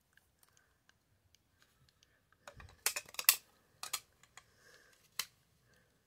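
Hard plastic clicking and tapping as a magnetic card holder is handled and pressed into a plastic display stand: a quick cluster of sharp clicks about halfway through, then two single clicks later, with faint ticks between.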